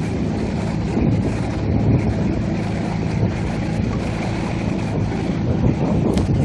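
Coaching launch's outboard motor running steadily, a low hum, with wind buffeting the microphone.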